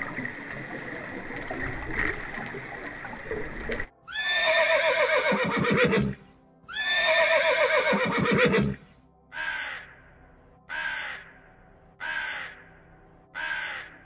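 A steady noisy hiss for about the first four seconds, then a horse whinnying twice, each whinny about two seconds long and falling in pitch, then a raven cawing four times at even intervals.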